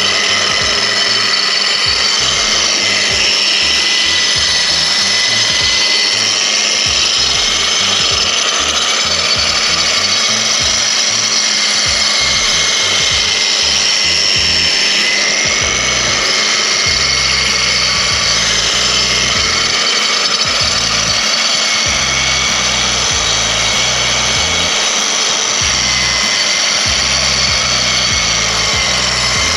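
Parkside PWBS 180 B2 wall and floor sander running continuously, a steady motor whine over a rushing noise, its pitch wavering slightly now and then.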